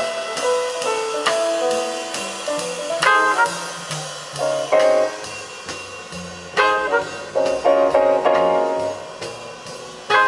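Music played back through Dynaco A-10 bookshelf loudspeakers driven by a Technics SE-A100 stereo power amplifier, heard in the room: an instrumental piece with sharp, struck note attacks over a steady beat.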